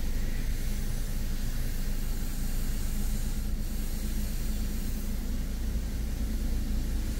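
D&S IQ Genius Series touch-free car wash gantry spraying a car in the bay: a steady hiss of high-pressure water, heard muffled from inside a waiting car, with a low steady hum underneath.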